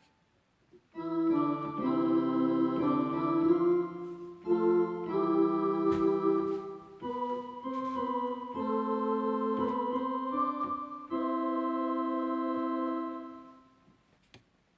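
Yamaha electronic keyboard playing a short passage of held chords in an organ voice. It starts about a second in, the chords change every second or so, and a long final chord fades away near the end.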